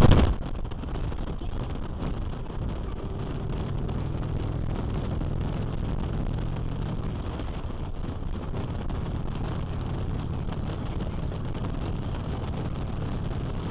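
Harley-Davidson Street Glide's V-twin engine running steadily while cruising, mixed with wind rush on the microphone. A brief loud burst comes at the very start.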